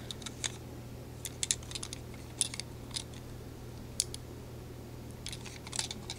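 Scattered light clicks and taps of a small HO-scale diecast model truck being handled and turned in the fingers, over a steady low hum.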